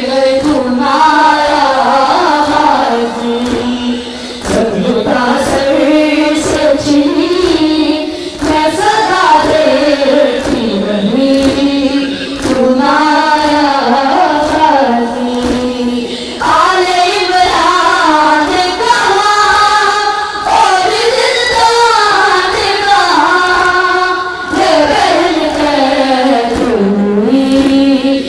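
Shia noha (mourning lament) sung by a young lead reciter with a crowd of mourners chanting along. It goes in repeated sung phrases of about four seconds, each with a short break before the next.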